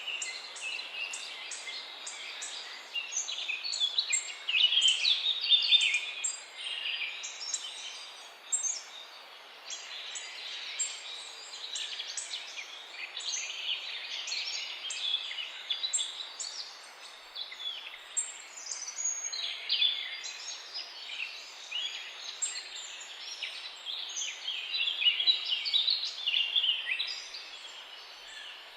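Several songbirds singing at once, a dense chorus of short overlapping chirps and trills, over a faint steady background hiss.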